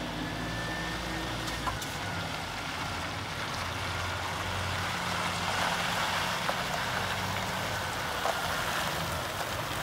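Scania P360 tipper truck's 9-litre five-cylinder diesel running as the truck drives slowly, with tyre noise on the wet yard surface growing louder as it comes closer. A few light clicks are heard.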